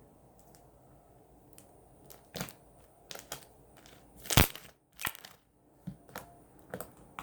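Foam slime (floam) being squeezed and kneaded by hand, its foam beads crunching and air pockets popping in irregular crackles, the loudest about four and a half seconds in.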